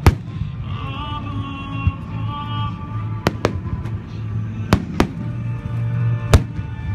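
Aerial firework shells bursting in a string of sharp bangs, some in quick pairs, the loudest just after the start and near the end, with music playing alongside.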